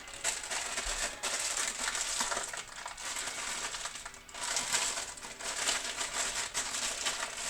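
Cardboard cake-mix box and its plastic inner bag being torn open, crinkling and crackling with many small clicks, easing briefly about four seconds in.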